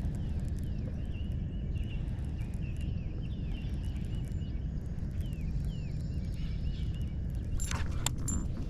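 Small birds chirping repeatedly in short, quick calls over a steady low rumble, with a few sharp clicks near the end.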